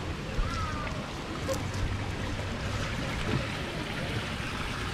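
Steady rush of running water from a small waterfall spilling into a pond, with a few faint clicks over it.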